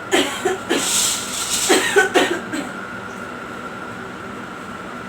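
A privacy curtain drawn along its rail in two pulls, scraping and swishing, within the first three seconds.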